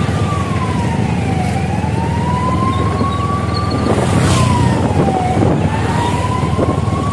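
A siren wailing, its pitch sliding slowly down and back up in cycles of about four seconds, over a steady low vehicle-engine and wind rumble. A brief rush of noise comes about four seconds in.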